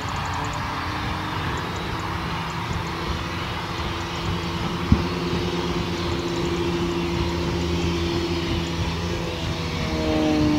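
BR Standard Class 4 tank steam locomotive working under steam as it approaches: a steady running noise with a few held tones, and one sharp knock about halfway through.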